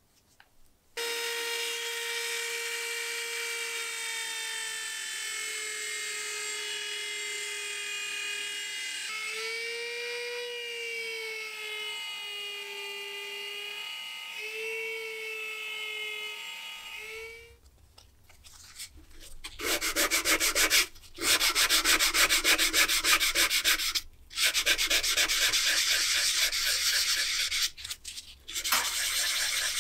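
Rotary tool with a small sanding drum running with a steady high whine against a brass eyepiece part, its pitch dipping and wavering under load. About halfway through it stops, and hand sanding of an aluminium end cap follows: rapid rasping strokes with a few short pauses.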